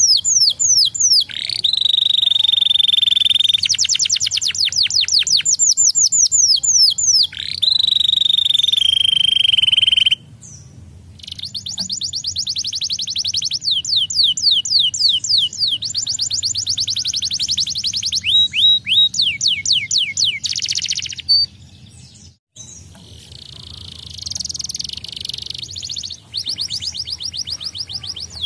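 Domestic canary singing: fast trills of rapidly repeated downward-sweeping notes alternating with held whistled notes, with short breaks about ten and twenty-two seconds in.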